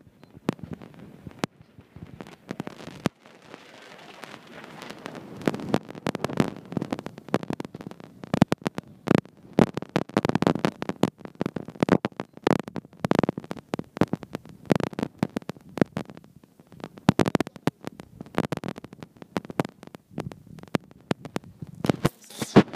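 Irregular sharp slaps and thuds of a savate (French boxing) bout: the boxers' shoes stamping and scuffing on the floor, mixed with punches and kicks landing, coming in busy flurries with short lulls.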